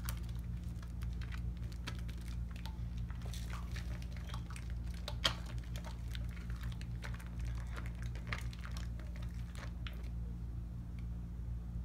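Lathered hands rubbing and turning a Tone cocoa butter bar soap: a dense run of quick, irregular wet clicks, one louder than the rest about five seconds in, thinning out after about ten seconds.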